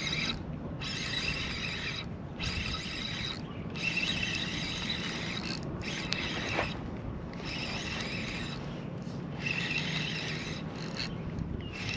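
Fishing reel cranked in repeated bursts of a second or two with short pauses between, as a topwater popper is retrieved in a pop-and-reel rhythm. A single sharp click about six and a half seconds in.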